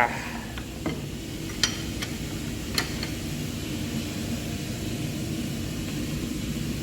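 Steady low hum of boiler plant-room machinery, with four light metallic clicks and clinks of parts and tools being handled during the first three seconds.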